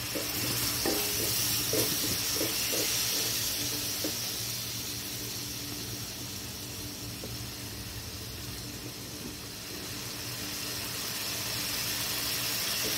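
Masala paste in hot oil sizzling and bubbling in a nonstick pan, a steady hiss as the small amount of added water boils off until the oil separates. A few brief louder sounds stand out in the first four seconds.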